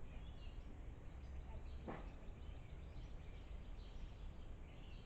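Faint bird chirps over a steady low outdoor rumble, with a single sharp knock about two seconds in.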